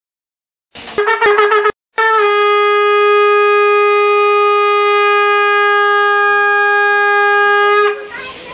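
Long S-curved brass horn (narsingha) being blown: a few short wavering blasts about a second in, a brief break, then one long steady note held for about six seconds before it cuts off near the end.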